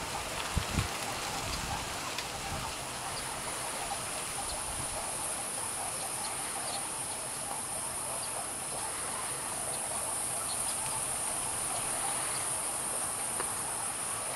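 Steady, high-pitched drone of insects, growing stronger after the first few seconds. Two brief low thumps come about half a second in.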